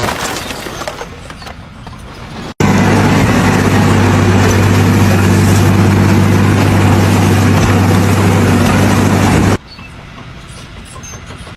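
Loud machine running steadily with a low hum, starting abruptly about two and a half seconds in and cutting off suddenly about seven seconds later; quieter mechanical noise before and after.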